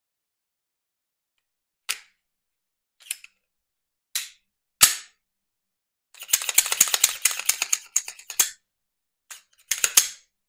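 Metal clicks and snaps from a Smith & Wesson M&P 2.0 9mm pistol being reassembled: four separate sharp clicks, the last and loudest with a thud as the slide goes home on the frame. Then comes a couple of seconds of rapid clicking and rattling as the slide is worked back and forth to spread the fresh lubricant, ending in a few more clicks.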